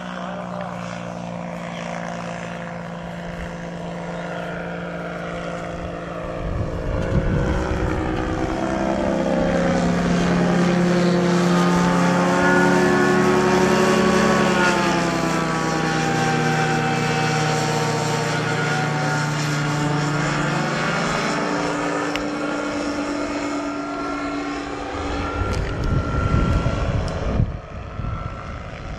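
Kolb ultralight's engine and propeller droning as the plane flies past: the drone grows louder and rises in pitch as it comes in, is loudest in the middle, then drops in pitch and fades as it flies away. Wind rumbles on the microphone about seven seconds in and again near the end.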